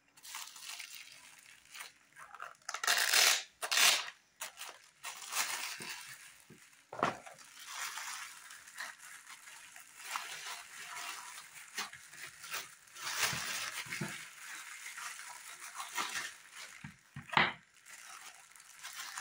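Clear plastic wrapping crinkling and rustling as hands unwrap small packed items, with louder bursts of crackling about three and four seconds in.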